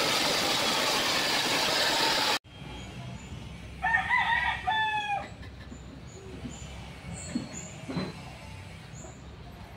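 Band saw cutting through a thick hardwood blank, a loud steady noise that stops abruptly about two seconds in. About four seconds in a rooster crows once, followed by faint high chirps.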